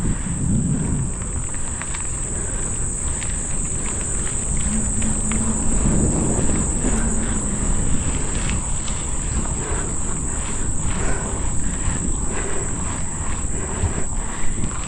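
Insects buzzing in a steady high-pitched drone over low wind rumble on the microphone, with scattered clicks and knocks from a bicycle being ridden uphill.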